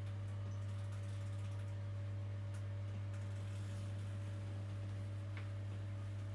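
Steady low electrical hum of running aquarium equipment, with a few faint ticks.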